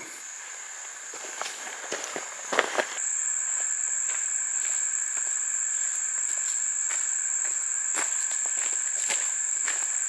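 Insects keep up a steady, high-pitched drone that gets louder about three seconds in. Scattered footsteps on a dirt forest trail sound over it.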